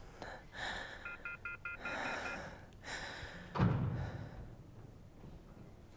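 Mobile phone keypad beeping in a quick run of about seven short tones as a number is dialled, amid heavy breathing. About three and a half seconds in, a dull thump, the loudest sound here.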